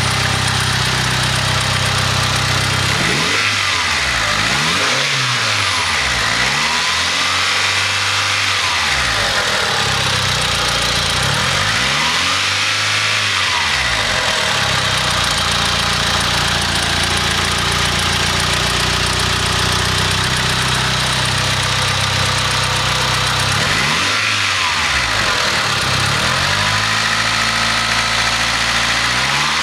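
Mitsubishi 4G63 inline-four engine idling and revved up and back down several times, with an odd noise that the owner suspects may be a spun bearing.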